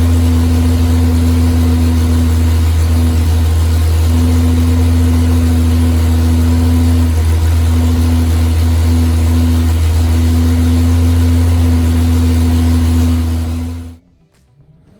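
Chrysler Hemi 265 straight-six engine with a CNC-ported head, running steadily at a constant speed, then stopping about fourteen seconds in.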